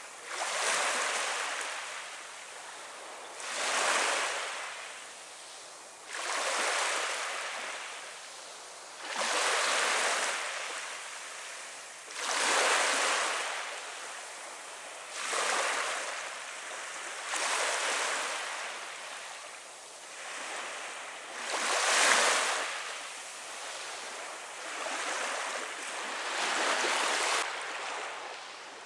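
Small waves washing up on a sandy shore of a calm sea, each wash rising and falling away, about one every three seconds.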